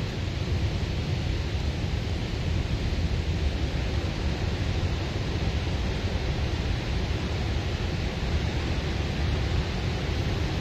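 River water rushing through a narrow rock gorge: a steady, unbroken rushing hiss.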